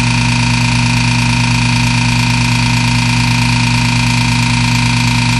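Vacuum pump running steadily as it evacuates a chamber: a constant hum with a few steady whining tones over it. The operators suspect the chamber is not pulling down fully because of a leak somewhere.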